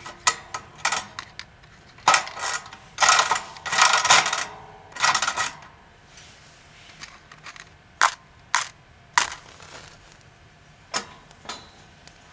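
Metal clinking and rattling from the chrome guard and burner parts of a Corona convection kerosene heater as it is handled and lit with a match. There are longer, louder rattles between about two and five and a half seconds in, then single sharp clicks.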